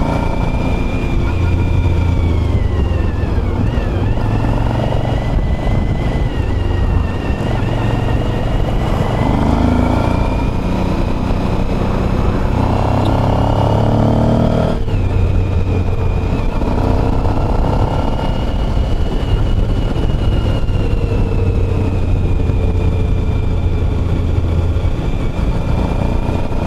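Motorcycle engine running under way, its note rising and easing with the throttle and changing suddenly about halfway through, with a steady high whine above it.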